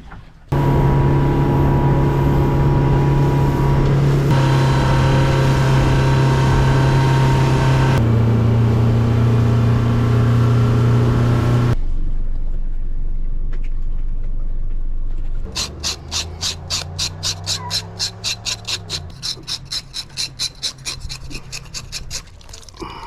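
Power boat's engine running steadily under way, dropping in pitch partway through. It cuts off abruptly, and later comes a run of even rasping strokes, about three to four a second, like a blade being stroked or a fish being scraped.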